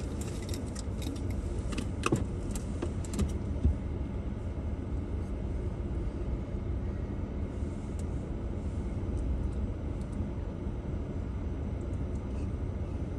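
Jeep driving on an off-road trail: a steady low rumble, with a few clicks and rattles in the first few seconds.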